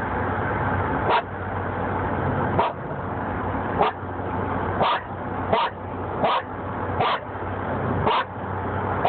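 A dog barking repeatedly in short single barks, roughly one a second, inside a moving car's cabin over steady road and engine noise.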